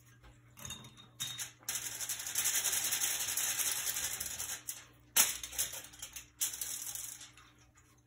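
Aluminium foil crinkling and rustling under a hand working on a foil paint palette, in two spells of a few seconds each.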